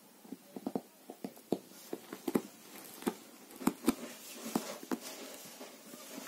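Irregular soft taps and rustles, a couple of dozen in a few seconds, from a tabby cat squirming, rubbing its head and rolling over on a fleece blanket while a hand strokes it. A steadier rustling of fur and fleece builds near the end.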